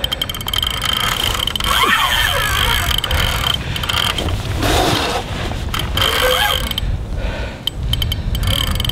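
Large spinning reel working under load while a hooked sturgeon pulls: a high whine from the drag giving line, which breaks off and comes back, with fast runs of ratcheting clicks. Low wind rumble underneath.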